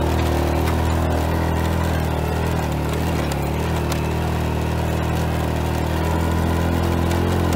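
An engine running steadily at an even pitch, with a rushing noise over it.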